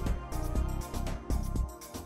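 Background music with a steady beat, about three strong beats a second over a heavy bass.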